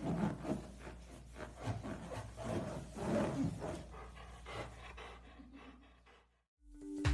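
Golden retriever nuzzling and pressing its head on a large latex balloon, fur and rubber rubbing in irregular bursts that die away about five seconds in.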